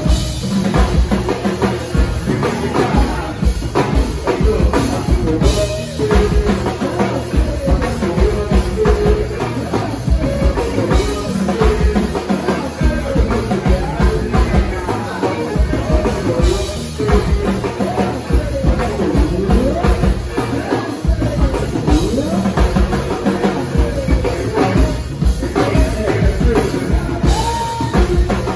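Live go-go band playing a steady, driving drum beat with congas and melodic lines on top.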